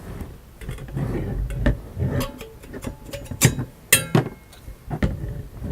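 Stainless steel gooseneck kettle being handled: rustling, then a series of sharp metallic clinks and knocks.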